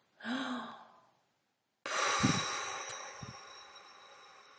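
A person draws a short breath, then blows out hard into the microphone: a long, breathy whoosh that starts suddenly about two seconds in and slowly fades away.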